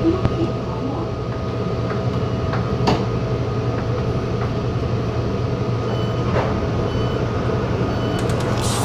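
Taichung Metro Green Line electric multiple unit running, a steady rumble and hum inside the car with a couple of short clicks.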